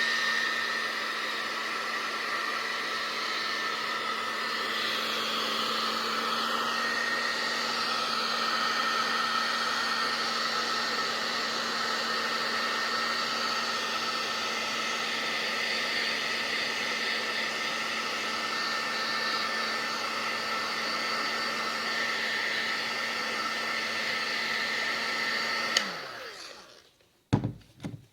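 Hot-air heat gun running steadily with a hum and a whine, blowing on a phone's glass screen to soften the adhesive underneath. Near the end it switches off and its motor winds down, followed by a couple of sharp clicks.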